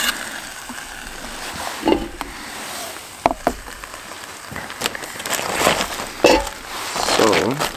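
Metal cookware being handled on a backpacking canister stove. A frying pan is lifted off the burner and a steel kettle is set on it, giving a few scattered clinks and knocks over a steady background hiss.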